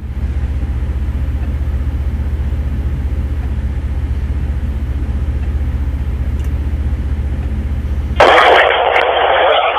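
An engine idling steadily with a low drone and a rapid even pulse. About eight seconds in, a two-way radio opens with a burst of static hiss lasting about a second and a half.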